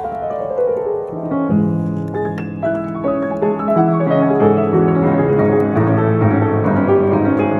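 1919 Steinway & Sons Model O grand piano being played: a falling run of notes dies away, then fuller chords over low bass notes come in about a second and a half in.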